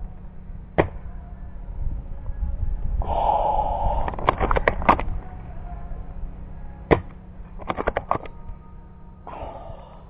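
Custom Well MB06 spring bolt-action airsoft sniper rifle: sharp snaps of shots about a second in and about seven seconds in, with quick runs of clicks between them as the bolt is worked. Short bursts of hiss around three and nine seconds in.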